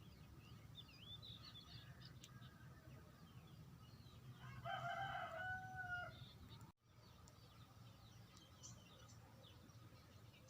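A rooster crows once, a single held call about a second and a half long, midway through. Faint high bird chirps come and go around it.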